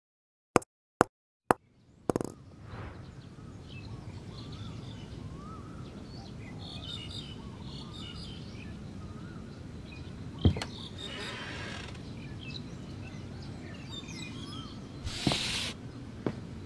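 Seaside ambience: a steady low rumble of sea with small birds chirping and short wavering calls repeating, opened by three sharp clicks. A single thump comes about ten seconds in, followed by a brief hissing wash, and a second hissing wash comes near the end.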